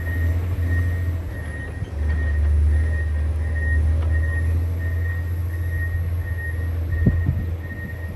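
John Deere 670 GP motor grader's diesel engine running with a heavy low rumble that drops in pitch about two seconds in, as the load or throttle changes. A high beep repeats about two and a half times a second throughout, and a single knock sounds about seven seconds in.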